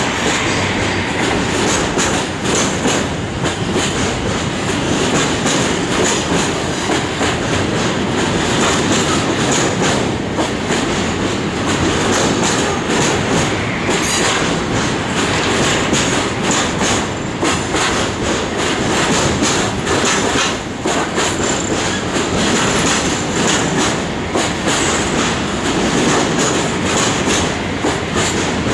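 Container freight wagons rolling past, their wheels clattering in quick irregular clicks over rail joints and points, with a steady rumble of the passing train.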